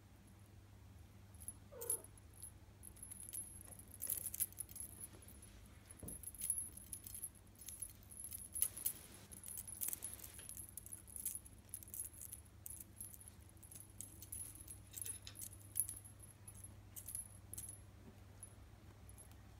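Faint, irregular jingling and rattling of small cat toys as a Ragdoll kitten bats and plays with them, with one short kitten mew about two seconds in.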